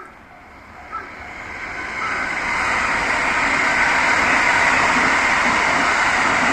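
A train passing close by on the JR line: a rushing noise swells over the first two seconds and then holds loud and steady. A level-crossing warning bell dings at the start and once more about a second in, then is drowned out.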